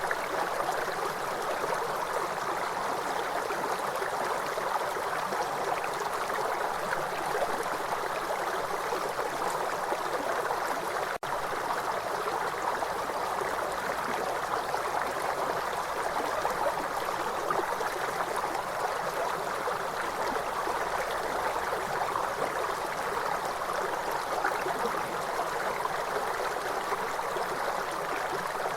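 River water flowing steadily: a continuous, even rushing of a stream, with a split-second dropout about eleven seconds in.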